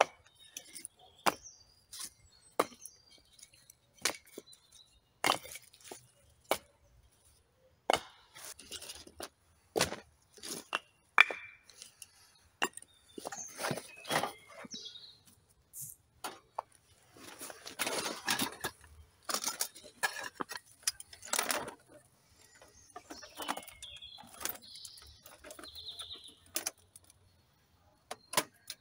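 A string of sharp knocks and clatters from camp gear being handled: split firewood logs set down, then metal clinks as a folding metal fire pit is unfolded near the end. A denser run of clattering comes about two-thirds of the way through.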